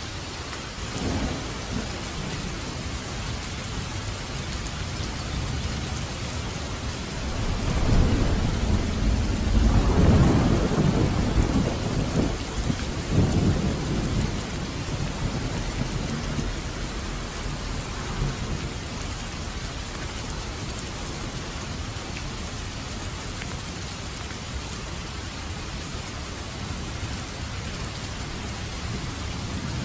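Steady rain with a long, deep rumble of thunder that builds about a quarter of the way in, peaks twice near the middle, then fades back under the rain.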